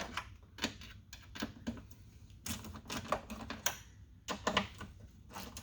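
Small ratchet wrench clicking in short, irregular runs, loosening the 10 mm nuts that hold a door mirror.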